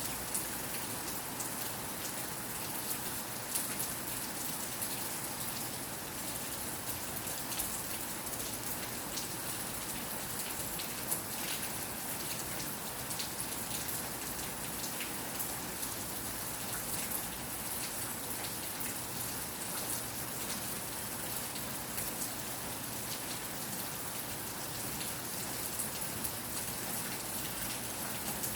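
Steady rain falling: a constant hiss with many small, scattered drop ticks.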